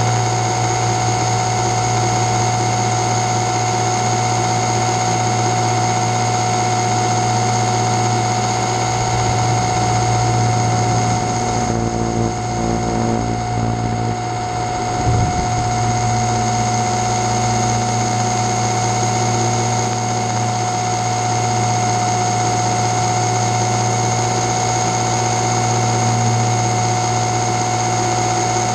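Multirotor drone's electric motors and propellers whining steadily, with a strong low hum under a high-pitched whine. The sound thins briefly about halfway through, with a single short knock.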